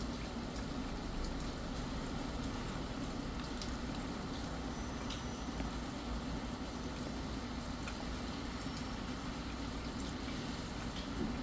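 Steady rain: an even hiss with scattered faint drip ticks.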